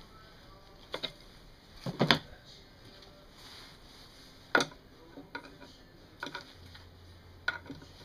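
Scattered sharp metal clicks and knocks from an adjustable wrench and parts being handled at the flywheel magneto of a British Seagull outboard motor, the loudest a double knock about two seconds in.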